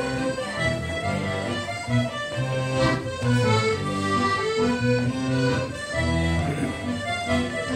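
Accordion-led Ländler music, a medley of Alpine folk dance tunes, played with a steady, regular bass beat.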